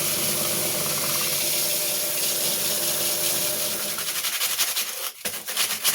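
Wood lathe running while a turning tool cuts the spinning wood, giving a steady hiss over a faint motor hum. The hum fades about four seconds in, and a brief break near the end is followed by a run of quick clicks.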